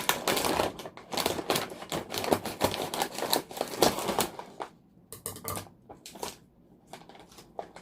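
Plastic snack bag of Maitatos balado potato chips being crinkled and torn open by hand: a dense run of crackling for about four and a half seconds, then sparser rustles and clicks.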